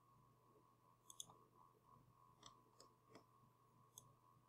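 Faint, scattered clicks of a computer mouse, six or so spread unevenly, over a faint steady hum.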